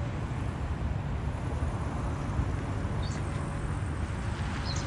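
Bald eagle giving faint, high, short chirps about three seconds in and again near the end, over steady background noise like traffic.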